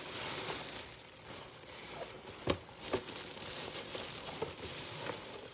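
Thin plastic carrier bag rustling and crinkling as it is handled and food is taken out of it, with two sharp clicks about halfway through.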